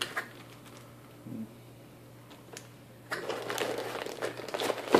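Clear plastic bag crinkling and rustling as a boxed wireless access point wrapped in it is gripped and pulled from its cardboard box. The crinkling starts about three seconds in, after a few light clicks of handling.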